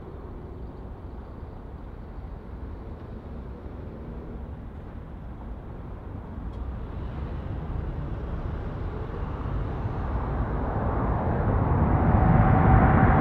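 Boeing 777-200F freighter on approach, its twin GE90 turbofans growing steadily louder as it comes closer, a deep rumble and rushing noise with a steady whine coming in over them in the last couple of seconds.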